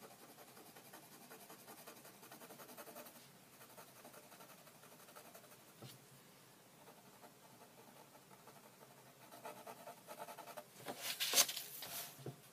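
Faint rapid pencil strokes scratching on drawing paper during the first three seconds. Near the end comes a louder rustle and scrape as the sheet of paper is slid across the table.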